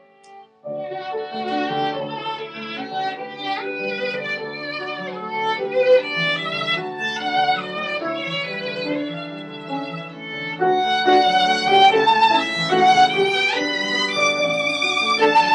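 Violin and grand piano playing together, the violin carrying the melody over piano accompaniment. After a brief pause the playing resumes less than a second in, and it grows louder about ten and a half seconds in.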